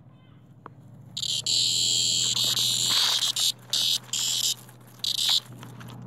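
Cicada giving a loud, high-pitched buzz of about two seconds, then three short buzzes that start and stop abruptly: the distress call of a cicada being handled, here mouthed by a puppy.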